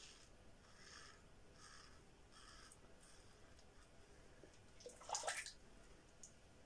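Yuma closed-comb safety razor with a Derby blade scraping through lathered stubble in short strokes: a faint rasp about every second for the first few seconds. About five seconds in comes one brief, louder rushing sound.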